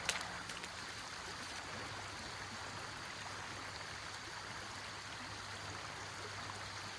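Steady rush of flowing stream water, with a few faint clicks in the first moment.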